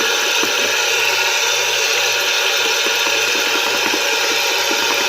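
33 mm comfort knot shaving brush working wet shaving soap into a lather: a steady swishing with many small irregular clicks.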